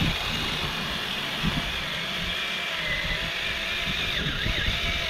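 Small chainsaw running steadily while cutting into a pumpkin, its pitch wavering slightly as the blade loads and unloads.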